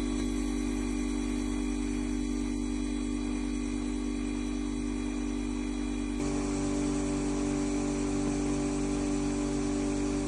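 Water-cooled brake disc grinding machine running steadily, its motors humming while the grinding wheels work the disc face at a slow feed. About six seconds in, the tone shifts and a brighter hiss of grinding rises.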